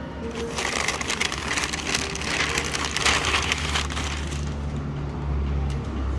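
Dense crackling, rustling noise of something being handled for about four seconds, then a low steady hum.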